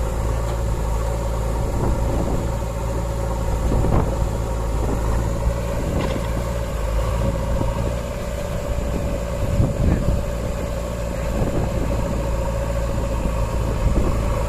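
JCB 3DX backhoe loader's diesel engine running steadily under load, with a steady whine over it and a few knocks.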